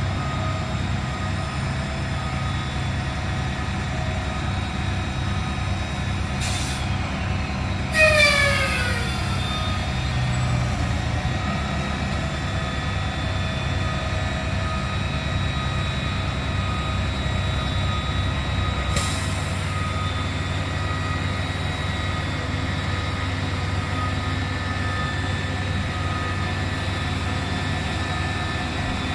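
Heavy truck engine running steadily at idle. Short bursts of air hissing out come about six seconds in, louder about eight seconds in with a falling whine, and again about two-thirds of the way through, where the engine note shifts.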